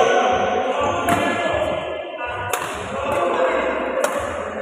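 Badminton rackets striking a shuttlecock during a doubles rally, three sharp hits about a second and a half apart. They sit over a continuous hall din with sustained tones.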